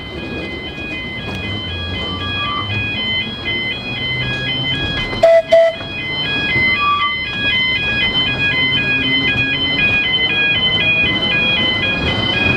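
Level-crossing warning alarm sounding a repeating electronic warble of stepped tones while the electric tramcar runs over the crossing. About five seconds in, a horn gives two short, loud blasts.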